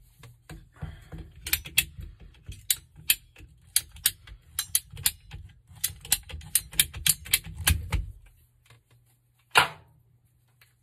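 PVC pipe cutter ratcheting through a PVC water pipe: a run of sharp clicks, about three a second, for some six seconds, then one loud snap about a second and a half later.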